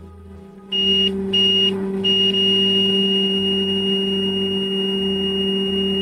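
Digital multimeter's continuity beeper: two short high beeps about a second in, then one long steady beep as the probes read a near-short of one to two ohms. A steady low hum runs underneath.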